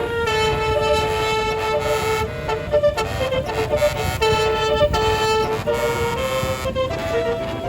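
A truck's multi-note telolet air horn (a 48-note 'basuri' horn) playing a melody of held notes that step from pitch to pitch, over a low engine rumble.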